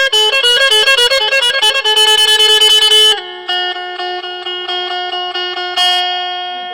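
Phin, the plucked Isan lute, playing a fast run of repeated bright notes over a steady drone. About three seconds in it drops quieter into a slower repeated figure that fades away toward the end.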